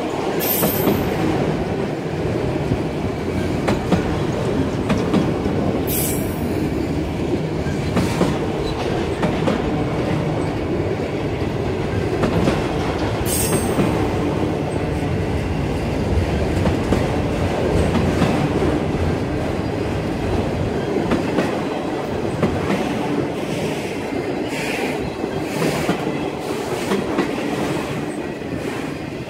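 Freight train of autorack cars rolling past at steady speed, wheels rumbling and clacking over the rail joints. A few brief high wheel squeals come about half a second, six seconds and thirteen seconds in.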